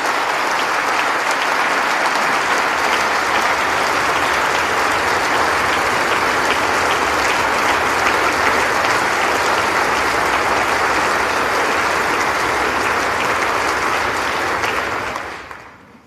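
Large audience of members of Congress applauding steadily, dying away near the end.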